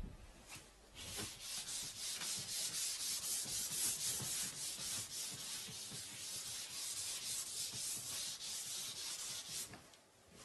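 Quick, rhythmic dry rubbing strokes, several a second, like something being scrubbed or scraped back and forth. It starts about a second in and stops shortly before the end.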